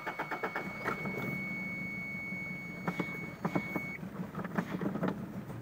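Toyota Tercel engine idling roughly, its beat uneven and punctuated by irregular pops: a severe misfire after the car sat unused for over a year. A steady high-pitched electronic tone sounds with it and cuts off about two-thirds of the way through.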